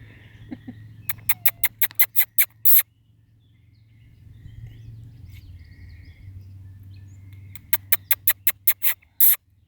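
Young fox chewing a mouse, the small bones crunching in two runs of sharp crunches, about five a second.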